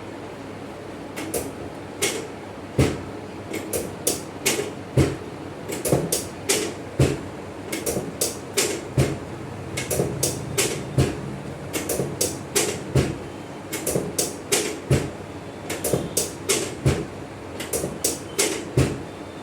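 An irregular series of sharp slaps or knocks, about two or three a second, starting about a second in and running on until near the end.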